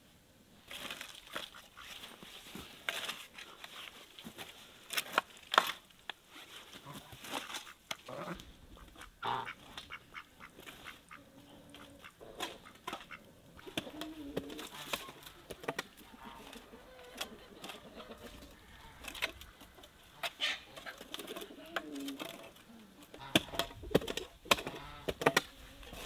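Farmyard poultry calling, over scattered clicks and knocks. Near the end, a shovel digging into soil.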